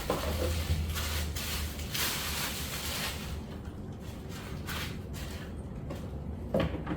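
Rustling and handling noise with a few soft knocks as a high-heeled platform shoe is worked onto a foot and its buckle straps fastened. The rustle is strongest in the first three seconds, and a brief murmur of voice comes near the end.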